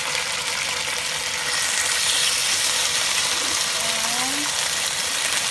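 Slices of marinated beef sizzling in hot oil in a nonstick pan, a steady hiss of frying that shows the oil was hot when the meat went in.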